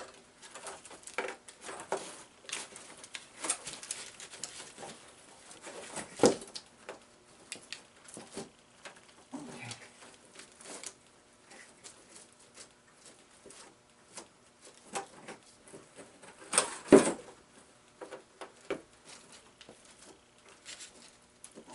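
Hands working a coiled sawmill bandsaw blade out of its box: scattered light clicks, taps and rustles at uneven spacing, with one louder knock about three-quarters of the way through. A faint steady hum sits underneath.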